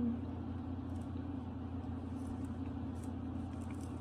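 Steady low hum of room noise, with a few faint light ticks.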